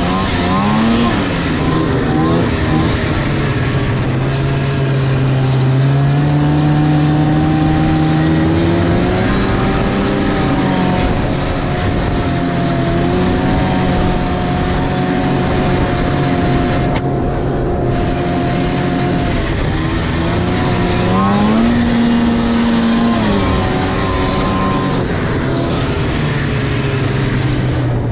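Snowmobile engine running at speed, its pitch climbing and dropping several times as the throttle changes, over a steady rush of noise.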